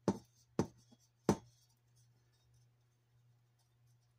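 Three quick knocks as a round LED light fixture is pushed and shifted against an RV ceiling panel, all within the first second and a half.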